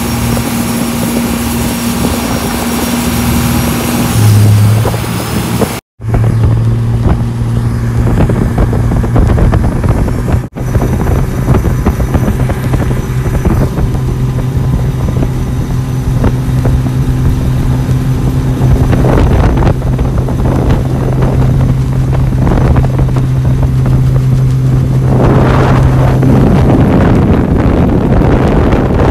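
Speedboat's inboard engine running steadily at high speed, a loud, even drone, with wind buffeting the microphone and water rushing past the hull. The sound drops out briefly twice, about six and ten seconds in.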